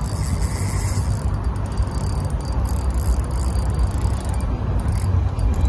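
Spinning reel being cranked against a hooked fish, its gears whirring and rattling, over a steady low rumble.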